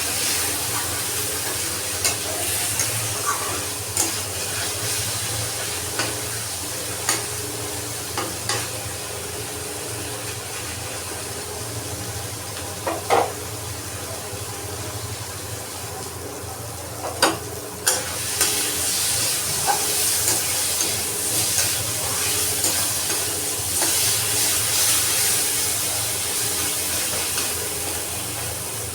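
Food sizzling as it fries in a pan, with a spatula stirring and knocking against the pan now and then; a few sharper knocks come around the middle.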